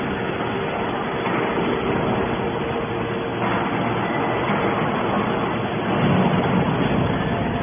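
Hydraulic scrap metal baler running: a steady machine drone with a constant hum, swelling briefly louder about six seconds in.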